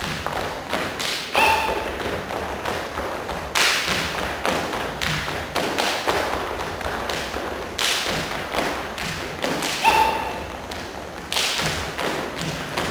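Saman dance body percussion: a row of kneeling dancers slapping their chests and hands in unison, a quick rhythm of light slaps broken by several heavier unison thumps.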